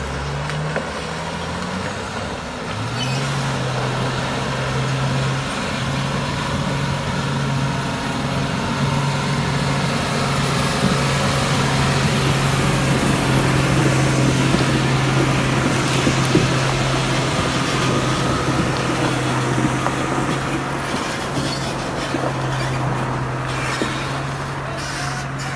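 Diesel engine of a Tata tractor-trailer truck running steadily under load as it drives through a shallow river, over a constant rush of water. The engine note climbs in the first couple of seconds, then holds steady. A few sharp clicks sound near the end.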